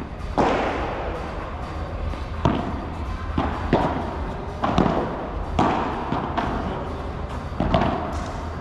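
Padel rally: the ball struck by rackets and bouncing off the court and walls, a run of sharp, irregularly spaced hits roughly a second apart, each with a short ringing tail.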